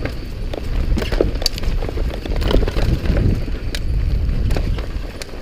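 Mountain bike riding down a rough dirt trail: a steady rumble of wind on the microphone with frequent sharp clicks and knocks as the bike rattles over the rough ground.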